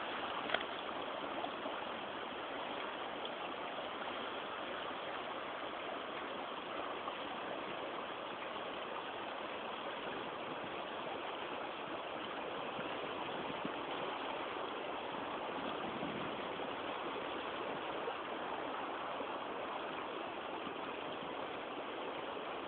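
River water rushing steadily over shallow riffles and around boulders.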